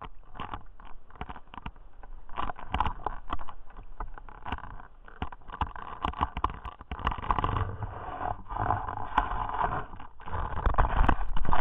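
Seawater sloshing and gurgling against a camera housing held at the surface on a speargun, in irregular surges as the spearfisher swims, loudest near the end.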